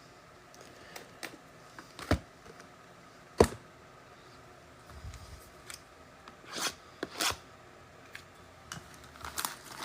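Scattered short clicks and taps from handling trading-card retail packs and their packaging on a table, the sharpest tap about three and a half seconds in.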